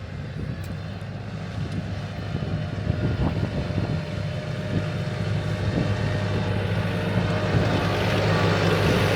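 Tractor engine running steadily, growing gradually louder.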